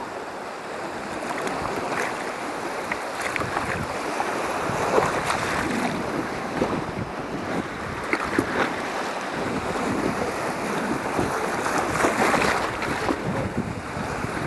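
Sea water splashing and lapping around a kayak, with wind buffeting the microphone.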